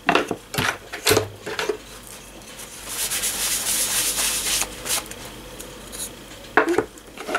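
Paper towel rubbing dry over painted coasters, with a steady wiping stretch in the middle, and light clacks and taps as the coasters are handled and set down on the craft mat.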